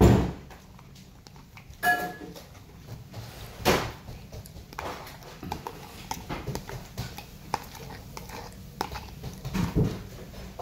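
Close-up eating sounds: a metal fork clicking and scraping on a plate of food and food being chewed. There is a string of small clicks, with a few louder knocks, the loudest right at the start.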